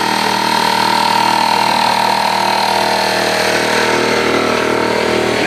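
Small pancake air compressor running steadily, a motor drone with a higher whine that fades out about halfway through.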